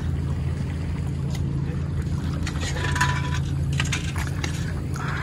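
An engine running steadily with a low, even hum. A few clicks and a brief high tone come about three seconds in.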